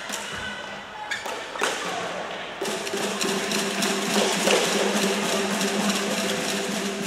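Badminton rally: sharp taps of rackets striking the shuttlecock. A steady hum and din of a busy multi-court sports hall comes in about two and a half seconds in.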